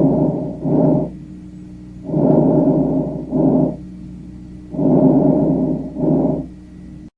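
Recorded breath sounds: three breath cycles, each a rushing sound of about a second followed closely by a shorter one of about half a second, repeating about every two and a half seconds.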